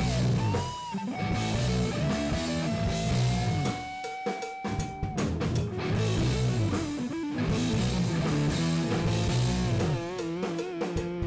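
Background music: a song with guitar and a drum kit keeping a steady beat, with long held melody notes over it.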